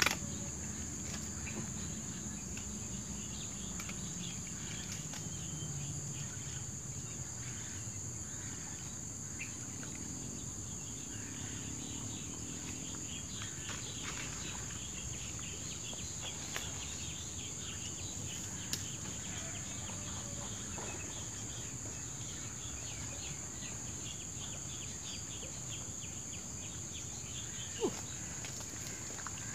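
Insects buzzing in a steady high-pitched drone, with faster rhythmic chirping over it and a low rumble beneath. A few sharp clicks break in, the clearest near the end.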